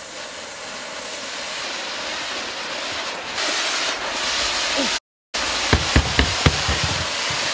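Handheld firework fountains hissing steadily as they spray sparks and smoke, growing louder as a second one is lit. The sound breaks off for a moment about five seconds in, and a handful of sharp crackles follow.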